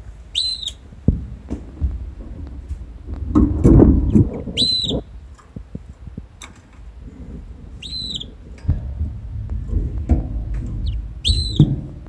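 Female red canary giving four single call notes, each a short, clear high note that rises and falls, spaced three to four seconds apart. Between them runs a low rumble, loudest around four seconds in, with a few light clicks.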